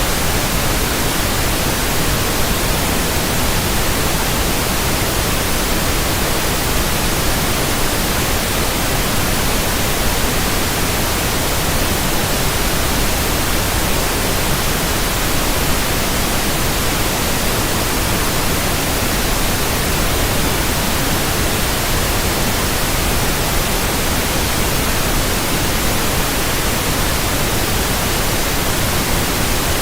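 Steady, loud static: an even hiss spread across all pitches, unchanging throughout.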